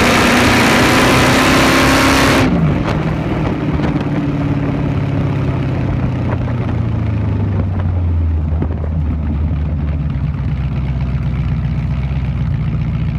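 Vehicle exhaust, a 3-inch system with a single 10-inch hotdog resonator, loud under hard acceleration with the pitch climbing. About two and a half seconds in the throttle closes suddenly: the note drops, then eases down to a steady low drone as the vehicle cruises on.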